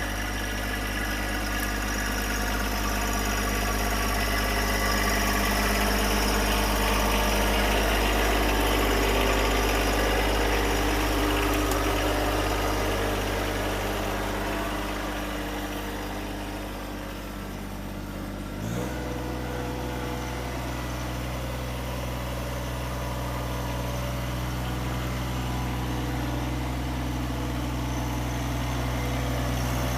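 Tractor engine running steadily, its pitch stepping up suddenly about two-thirds of the way through as the engine speed is raised.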